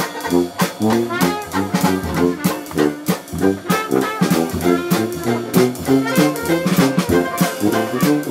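Live Dixieland jazz band playing: trombone, tuba, strummed banjo and drum kit, with a steady beat.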